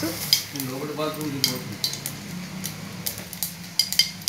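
Seeds for a tempering crackling and popping in hot oil in a small steel pan, with sharp irregular clicks several times a second while a spoon stirs and taps against the steel.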